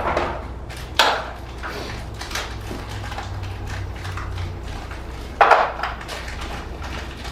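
Small metal hardware being handled on an engine: a sharp knock about a second in and a short clatter later on, over a steady low hum.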